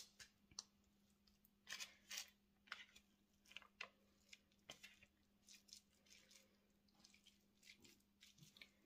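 Hands squeezing and patting a sticky mix of shredded cheese, canned chicken and egg into nugget patties on parchment paper: faint, irregular soft squishes and crackles.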